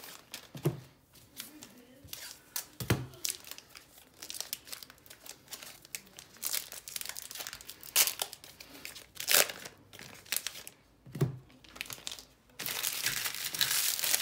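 Baseball card pack wrappers crinkling and being torn open: sharp crackles throughout, a few soft knocks, and a denser, steadier rustle near the end.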